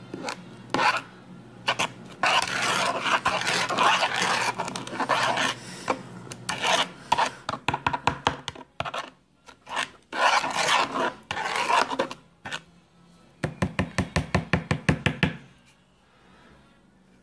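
A metal spoon stirring oatmeal powder and water in a bowl, scraping and rubbing against the bowl in long strokes, then a quick run of short strokes near the end before it stops.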